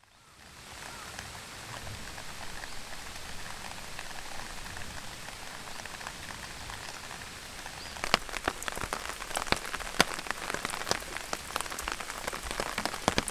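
Steady rain falling, fading in over the first second. From about eight seconds in, many sharp, close drop hits patter over the hiss.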